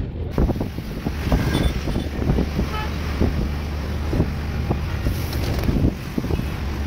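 Wind buffeting the microphone in irregular gusts over a steady low rumble of road traffic, as recorded from a moving vehicle.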